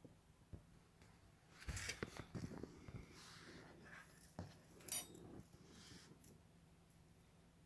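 Faint clicks and light knocks of small hard objects being handled over a quiet, steady low hum, clustered in the middle of the stretch with the sharpest click about five seconds in.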